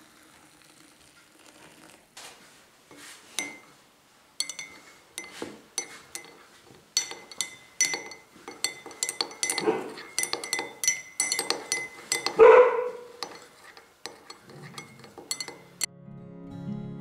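Metal teaspoon stirring in ceramic mugs, clinking against their sides in many quick, ringing taps, with one louder knock about twelve seconds in. Acoustic guitar music comes in near the end.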